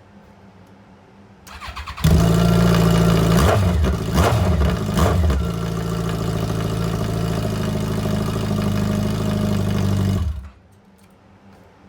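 Yamaha FJR1300 inline-four engine cranked on the starter and catching about two seconds in. It is blipped three times, then idles steadily until it is switched off near the end. It is running loud on open pipes with the silencers and link pipes off, blowing any debris out of the exhaust.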